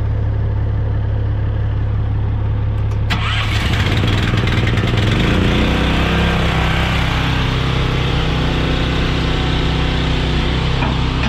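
Diesel engine idling, then about three seconds in a sudden loud hiss and a second engine note comes in, its speed shifting for a couple of seconds before settling into a steady run over the idle, as the rig's hydraulics are brought up to unhook the lowboy trailer.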